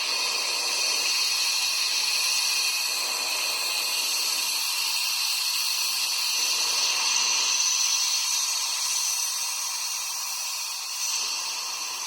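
Steady hiss of compressed air from a blow gun directed into the exhaust port of a VW Gol cylinder head, pressure-testing whether the freshly lapped exhaust valve seals against its seat.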